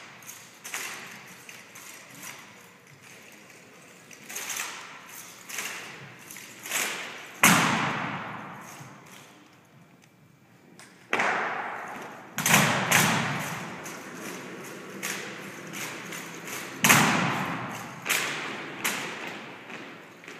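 Drill rifles being handled in a drill routine: rifle butts striking the floor and hands slapping the stocks in irregular sharp thuds and taps, each with a short echo. Four much louder thuds stand out, about 7, 11, 12 and 17 seconds in.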